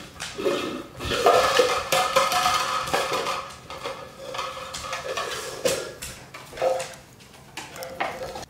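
Plastic party cups clattering on a hardwood floor, knocked over and picked up, in a run of irregular light knocks and taps.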